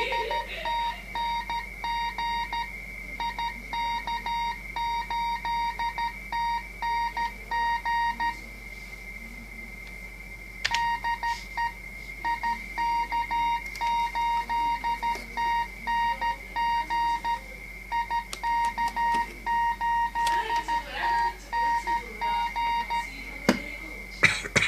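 Morse code (CW) sent as a beeping tone of about 1 kHz, keyed in dots and dashes, from a Kenwood TS-990 transceiver, with a steady high whistle underneath. The keying pauses for about two seconds partway through, and a few sharp clicks come near the end.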